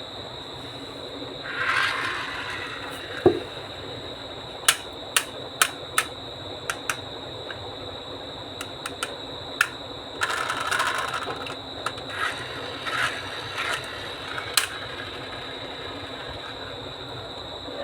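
Objects rolling down a HABA wooden marble run, with a string of sharp clicks and clacks as they strike the wooden pieces, and two short rolling rumbles, about 2 seconds in and about 10 seconds in.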